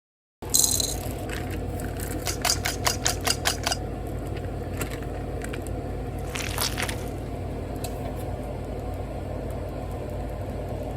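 Kitchen utensils clicking sharply against cookware about eight times in quick succession, then a short scrape, over a steady low hum.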